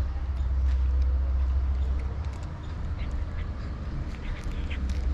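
A cat crunching dry kibble, a scattered run of short crisp crunches that come thicker in the second half, over a steady low rumble.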